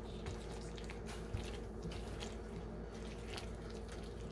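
Gobi Manchurian (fried cauliflower in thick sauce) being stirred in a nonstick pan with a silicone spatula: soft, irregular wet squelches and small pops from the sauce, with one light knock a little over a second in.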